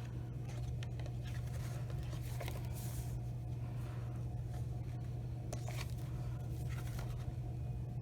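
Steady low electrical hum with a few faint, short rustles of paper pages being handled.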